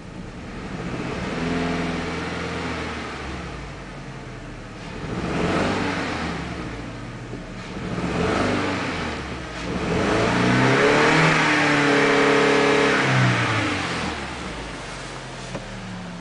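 Audi A4 B6 engine with a misfire, revved from idle four times: three short blips, then one held high for about three seconds before it drops back to idle.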